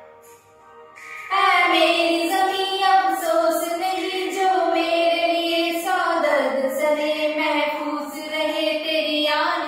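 Two women singing a patriotic song together. After a brief pause, the singing comes back in loudly about a second in.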